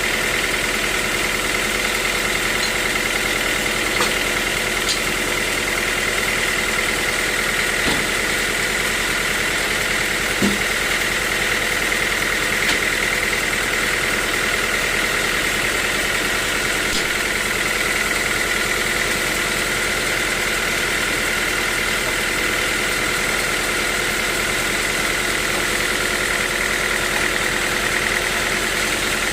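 Sawmill machinery running steadily: a constant mechanical drone with a high whine, broken only by a few light knocks.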